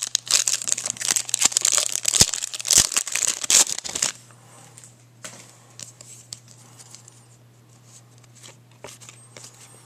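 Shiny foil trading-card pack wrapper torn open and crinkled for about four seconds, then quieter, with only faint handling of the cards.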